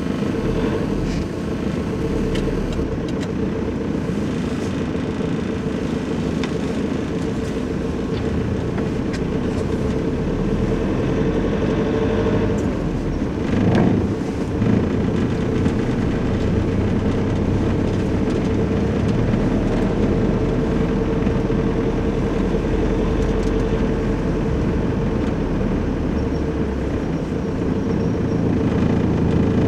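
Steady engine drone and road noise heard from inside the cab of a Nissan Navara Outlaw crew-cab pickup driving on a snowy street, with a brief change in the engine note about halfway through.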